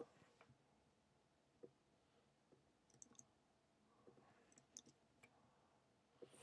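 Near silence with faint, scattered clicks of a computer keyboard and mouse, a few at a time with pauses between them.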